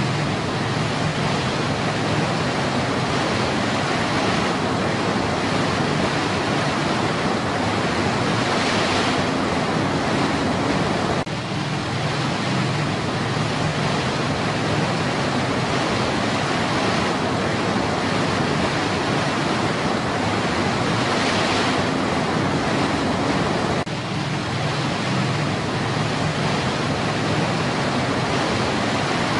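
Steady rushing of white water tumbling over rocks in a small stream cascade, an even, unbroken roar of water.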